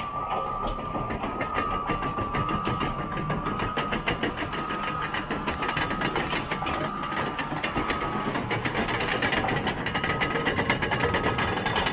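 Caterpillar D6T XL bulldozer working in brush: its diesel engine runs under load while the steel tracks clank and rattle rapidly. A high whine comes and goes in broken stretches, and the noise grows a little louder as the dozer drives closer.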